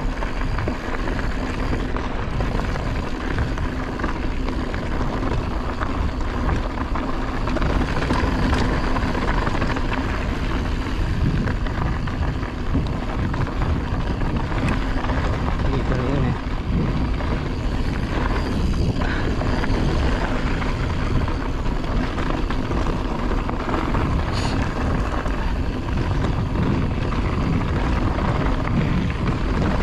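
Mountain bike rolling fast over a rocky gravel trail: a steady rush of wind buffeting the microphone mixed with tyre rumble, with a few sharp knocks from the bike over rocks.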